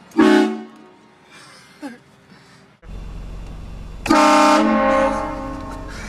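Two blasts of a car-mounted train horn: one short blast right at the start, then a longer, loud chord starting about four seconds in and fading out over about two seconds.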